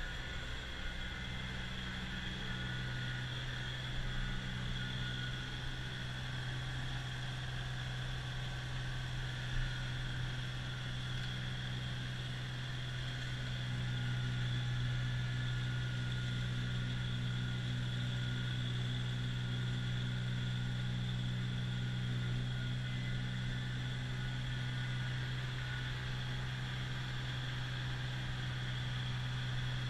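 Kubota BX2660 compact tractor's three-cylinder diesel engine running at a steady speed with its front-mounted snowblower engaged, a continuous low drone that grows a little louder about halfway through.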